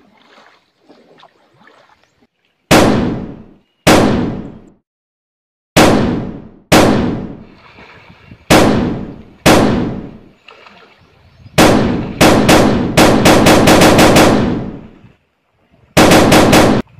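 Gunfire sound effects: six single shots about a second apart, each ringing out with an echoing tail, then a rapid burst of automatic fire lasting about three seconds and a shorter burst near the end.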